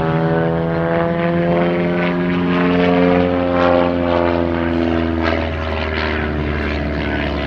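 One Design aerobatic monoplane's piston engine and propeller droning overhead during an aerobatic display. The engine note drifts up in pitch, then falls, with a further shift about five seconds in as the plane manoeuvres.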